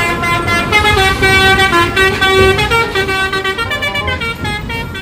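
Bus 'telolet' horn, a set of musical air horns playing a quick tune, the notes changing every fraction of a second.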